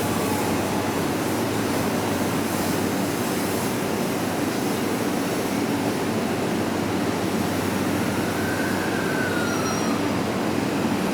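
Steady running noise inside the cabin of a Tokyu 3020 series electric train: an even rumble of wheels on rails, with a faint whine that rises and falls about eight seconds in.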